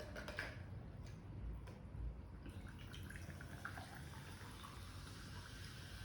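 Coca-Cola being poured into a glass with ice, fizzing faintly, with a few small clicks in the first two seconds.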